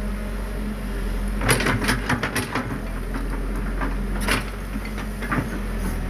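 Diesel engines of a Cat crawler excavator and a small crawler bulldozer running steadily, with a run of sharp clanks about a second and a half in and two more near the end.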